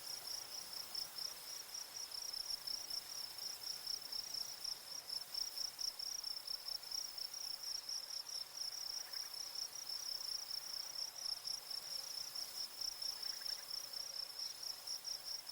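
Insects chirping in a high, steady, rapidly pulsing chorus, faint and unbroken.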